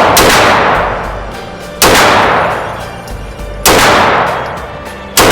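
Pistol shots in slow aimed fire, three sharp reports about two seconds apart, each followed by a long echoing decay.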